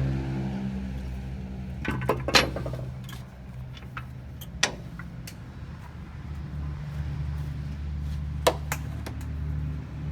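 Sharp metallic clanks and clicks of brake shoes, springs and tools being worked on a truck's air-brake assembly: a cluster about two seconds in, the loudest, then single knocks near the middle and a pair near the end, over a steady low hum.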